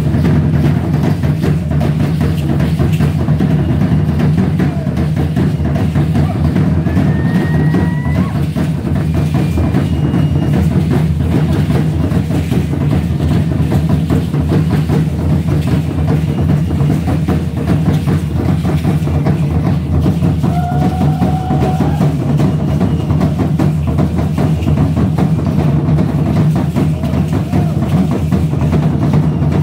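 Aztec ceremonial dance drumming: a deep huehuetl drum beaten in a steady, driving rhythm, with dense clattering percussion over it.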